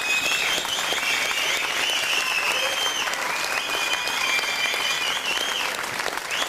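Audience applauding, with several long, high whistles held over the clapping; each slides up at its start and falls away at its end.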